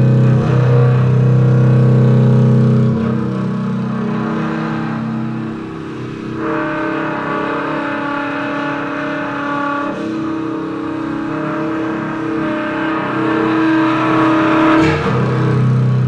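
Slow droning instrumental music of layered held tones. The deep low tones drop out about three seconds in, higher held notes come in around six seconds, and the deep tones swell back near the end.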